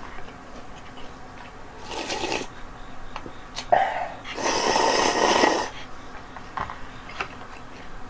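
A person slurping instant noodles: a short slurp about two seconds in, then a longer, louder slurp lasting about a second around the middle.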